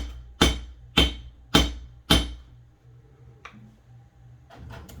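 A hammer tapping thin brass sheet laid on a ball-peen hammer head, shaping it into a curve: regular ringing metal strikes, about two a second, that stop a little after two seconds in. A few light clicks follow near the end.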